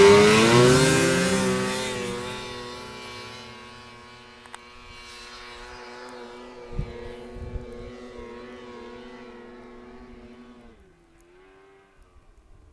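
Engine of an off-road vehicle revving up as it pulls away to climb the hill, then running at a steady pitch and fading as it gets farther off, before the pitch drops about eleven seconds in.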